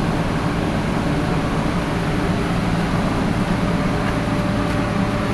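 Electric air compressor running under power with a steady hum.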